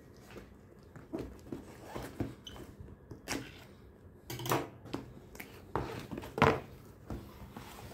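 Cardboard product box being handled and opened by hand: scattered rustles, scrapes and light knocks of cardboard, with a few louder strokes in the second half.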